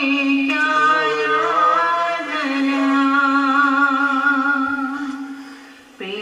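Music: a voice singing long held, wavering notes over a steady low drone. The phrase fades away and a new one starts with an upward slide just before the end.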